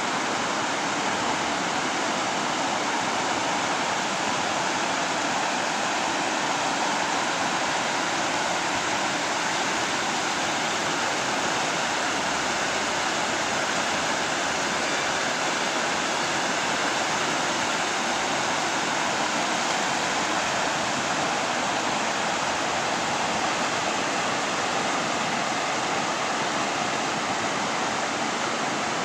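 Muddy river in flood rushing over rocks and gravel bars in rapids: a steady, unbroken rush of fast water. It is running high with the rain of a tropical storm.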